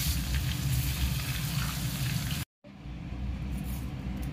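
Fresh curry leaves and chopped green chillies sizzling steadily in hot oil in a mesh frying basket. The sizzle cuts off suddenly about two and a half seconds in, and a fainter hiss follows.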